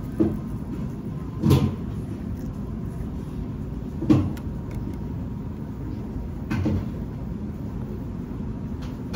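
Steady low rumble of a moving vehicle, with a short knock about every two and a half seconds.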